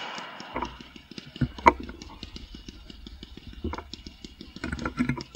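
Fireworks display: several sharp bangs of shells bursting, the loudest about a second and a half in and a cluster near the end, over a rapid, even ticking of about eight to ten a second.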